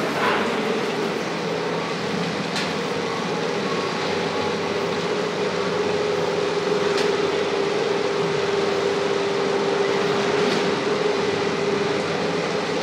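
POMA detachable gondola lift station machinery running: a steady mechanical hum with a held tone, and three sharp clicks a few seconds apart as the line's equipment works.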